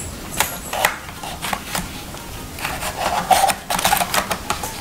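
Laptop optical drive being handled and slid into its drive bay: a run of short plastic-and-metal clicks, knocks and scraping, busiest near the end.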